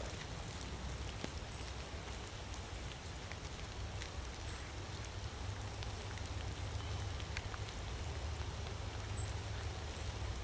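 Light rain ticking in scattered drops over a low steady rumble, getting a little louder near the end.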